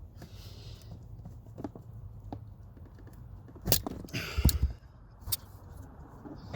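Wire strippers and wires being handled: scattered sharp clicks and snaps, with a louder burst of rustling and a dull thump about four seconds in, over a low steady hum.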